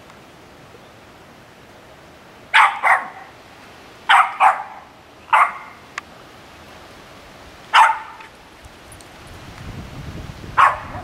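A dog barking at a squirrel up a tree: seven sharp barks, mostly in quick pairs, over a steady hiss of rain.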